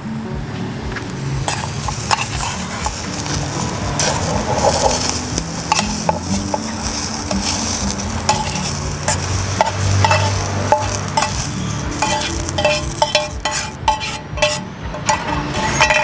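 Metal spoon scraping and clinking against a frying pan as dry-roasted chilies, garlic, shallots and herbs are scooped out into a stone mortar, with sizzling from the still-hot pan and repeated short clinks.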